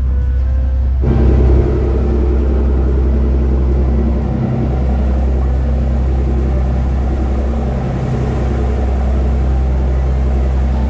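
Sportfishing boat's engine running steadily underway, a low drone with water rushing past the hull. It steps up in level about a second in.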